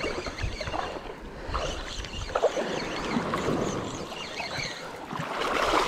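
Shallow seawater lapping and sloshing around a wading angler in light surf.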